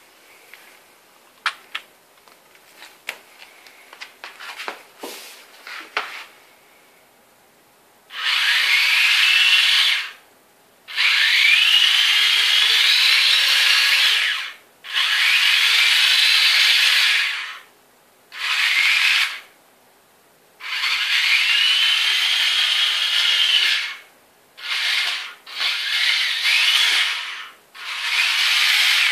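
Small electric motors and Tamiya gearbox of a 1/35 RC tank chassis whining in repeated bursts of a few seconds each, the pitch rising and falling as the speed changes under proportional control. A few light clicks and knocks come in the first few seconds before the motors start.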